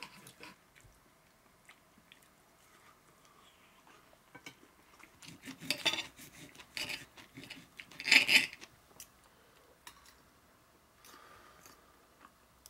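Steak knife and fork cutting steak on a plate, scraping and clinking against it, with louder spells of noise about six and eight seconds in.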